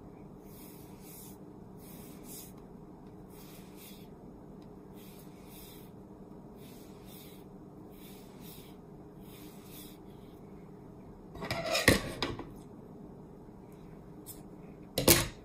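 Soft rustling of yarn sliding through the fingers as it is wound around the hand and elbow, a swish about once a second, over a faint steady hum. Two louder rubbing scuffs come, one about twelve seconds in and one near the end, as the coil of yarn is handled.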